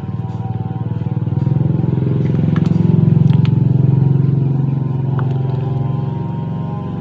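A motorcycle engine running close by, growing louder to a peak about three seconds in, then easing off.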